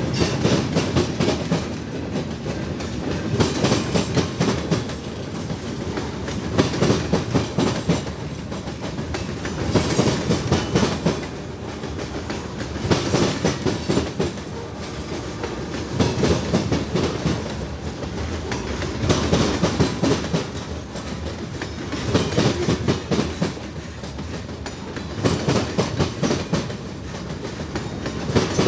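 Freight train cars rolling past, their steel wheels clattering over the rail joints in loud surges about every three seconds as each car goes by, over a steady rumble.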